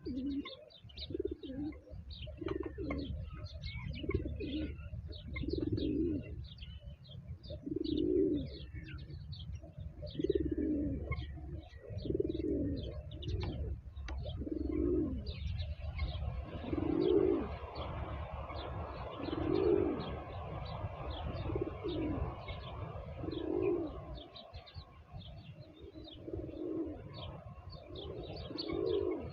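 Pigeons cooing over and over, a low coo every second or two, with small birds chirping high above them. About halfway through, a steady rushing noise joins in underneath.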